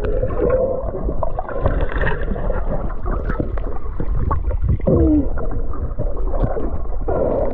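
Underwater sound of sea water and bubbles: muffled bubbling and gurgling over a constant low rumble, with small clicks and a couple of short wavering tones, near the start and about five seconds in.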